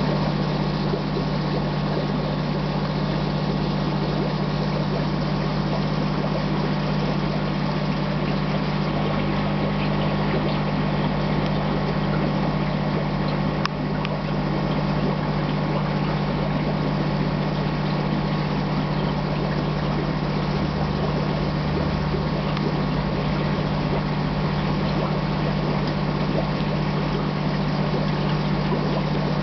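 Aquarium pump or filter running: a steady low hum over an even rushing water noise.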